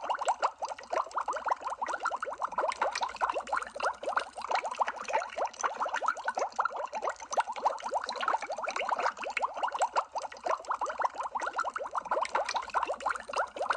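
Water bubbling sound effect: a dense, continuous stream of quick bubble blips, each rising in pitch, like underwater bubbles.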